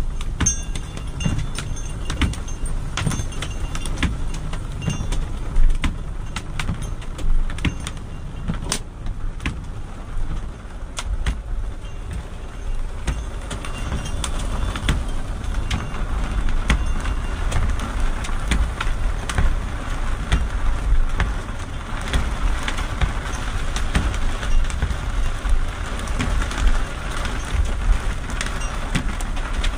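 Small hail and heavy rain pelting a car's roof and windshield, heard from inside the cabin: a dense patter scattered with many sharp clicks of hailstones. The downpour grows heavier about halfway through, over a low rumble.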